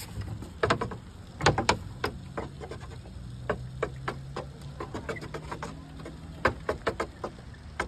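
Irregular clicks and knocks from hands working a playground pirate ship's steering wheel, with a low steady hum through the middle stretch.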